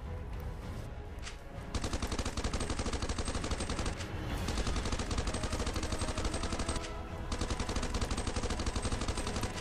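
Rapid automatic gunfire in long bursts, starting about two seconds in, with brief breaks around four and seven seconds.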